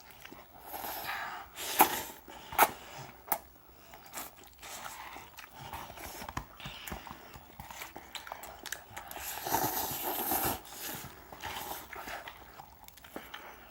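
People eating ramen fast: chewing and slurping noodles, with a couple of sharp clicks about two seconds in and a longer hissy slurp near the middle.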